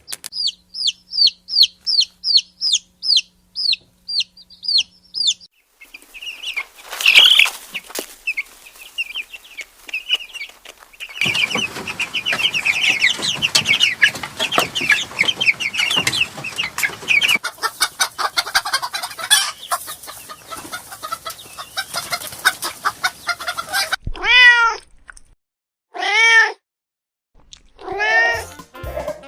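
A run of quick, high, falling chirps, then a noisy stretch of chicken clucking and calling, then three drawn-out cat meows near the end.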